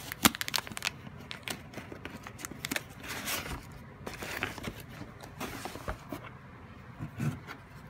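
A cardboard box being opened and its contents handled: a quick run of taps and clicks in the first second, then rustling and scraping of cardboard and packaging.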